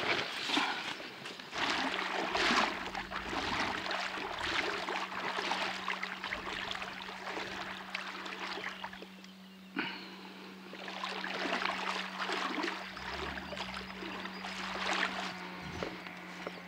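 Water splashing and sloshing in uneven swells every second or two, with a faint steady hum underneath.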